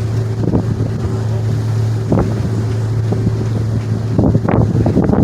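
Ferry's engines with a steady low drone, and wind buffeting the microphone on the deck.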